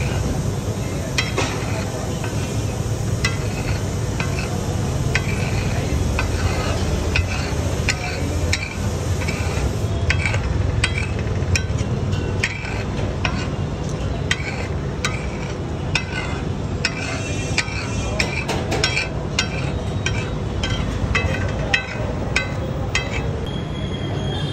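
Steel spatula scraping, chopping and clinking on a large flat tawa griddle as a kebab mix is stirred and broken up in hot oil, with many quick irregular metal strikes over a steady sizzle and a low background rumble.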